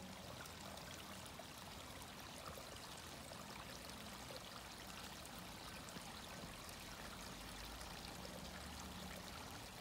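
Faint, steady sound of running water.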